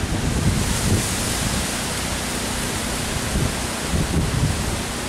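Hurricane-force wind rushing through trees and palm fronds, a steady loud hiss that strengthens about a second in, with gusts buffeting the microphone in low rumbles.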